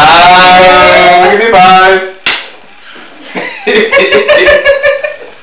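A loud, drawn-out voice for about two seconds, then a single sharp smack, followed by bursts of laughter.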